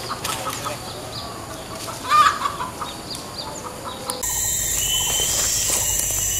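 Short clucking bird calls, loudest about two seconds in. After about four seconds a steady high-pitched insect drone takes over.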